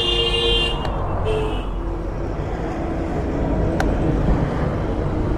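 Passing road traffic, a steady rumble of vehicles. A high pitched tone sounds for about the first second, and a single sharp click comes near four seconds in.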